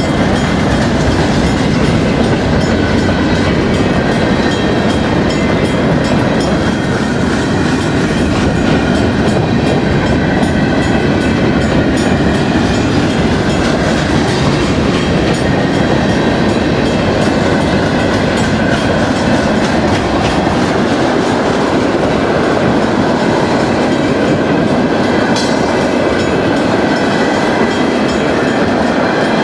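Freight train's covered hopper and tank cars rolling past close by: a steady, loud rumble with repeated wheel clicks.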